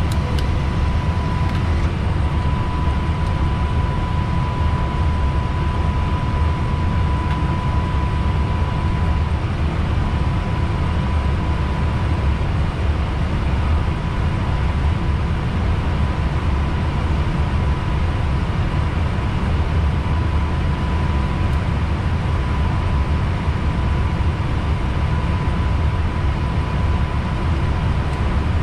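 Steady flight-deck noise of an Airbus A320neo in flight: a loud, even low rumble of airflow and engines with a hiss above it, and a thin steady high tone running through it.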